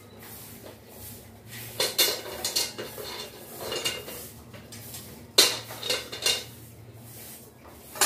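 Pieces of metal clattering and clanking against metal in several short bursts: about two seconds in, around four seconds, and again from five to six and a half seconds, with one sharp clank at the very end.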